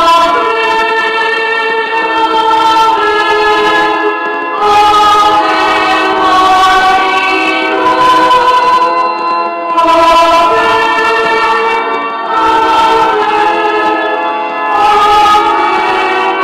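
Organ playing slow, held chords that change every second or two.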